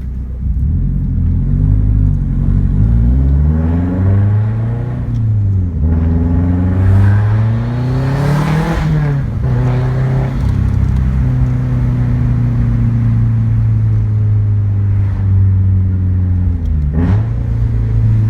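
2004 Subaru STI's turbocharged 2.5-litre flat-four, full bolt-on with a Tomei Expreme Ti exhaust, pulling through the gears: the pitch climbs twice, dropping at each shift, then holds steady at cruise with a brief dip near the end.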